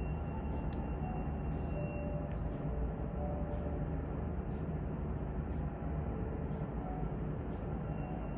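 Steady low rumble of aircraft on the apron, muffled by the terminal window glass, with a faint high steady whine above it.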